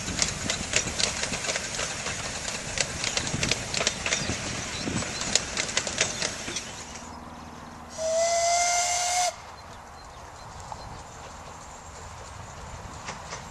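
Steam whistle of a miniature steam locomotive blown once for just over a second, a single steady high note that rises slightly before it stops. Before it, a passing train's carriages run by with many sharp clicks of the wheels on the track.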